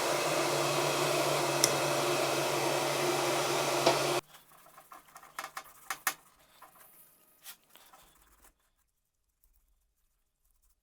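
Electric heat gun blowing steadily with a motor hum, switched off abruptly about four seconds in; faint clicks and handling noises follow.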